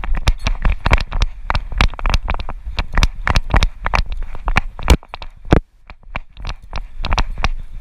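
Rapid, irregular clicking and knocking, several per second, with a low rumble underneath; it eases off about five seconds in and picks up again near the end.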